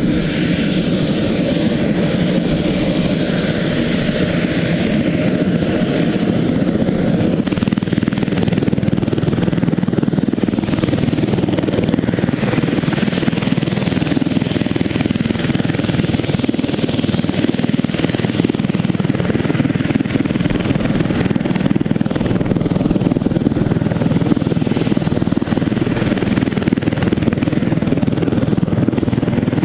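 Airbus H145 helicopter running on the ground, its twin turboshaft engines and rotors turning. A turbine whine rises in pitch over the first seven seconds or so, then the engines and rotors run steadily.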